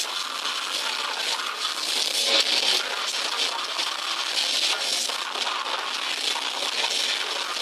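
Death metal band playing live: distorted guitars, drums and vocals blurred together into a harsh, crackling wall of sound with the low end missing, as from an overloaded microphone.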